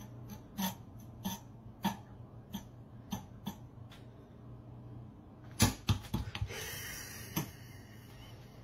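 A small USB desk fan's spinning blades ticking against a cat's paw as it bats at them, a sharp click every half second or so, then a louder flurry of knocks and a brief scraping about six seconds in.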